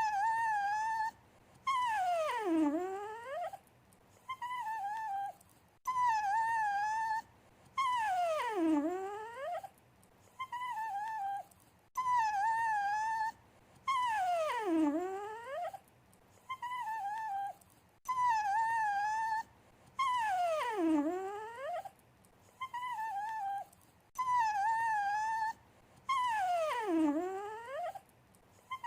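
A dog whining for attention: a short, wavering high whine, then a longer whine that slides down in pitch. The pair repeats about every six seconds, five times, in the same way each time.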